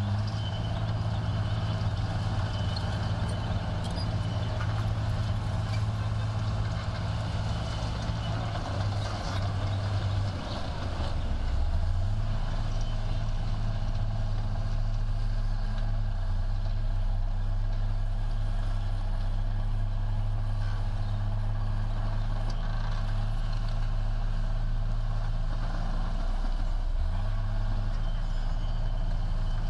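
Heavy diesel construction machine engine running under load. The engine note sags about a third of the way in and picks back up, then dips briefly again near the end.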